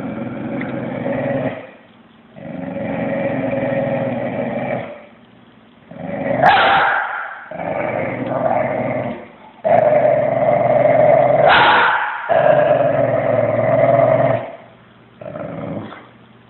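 Corgi growling in a series of long bouts a few seconds each, broken by short pauses, with a sharper rising yelp about six seconds in and again about eleven seconds in.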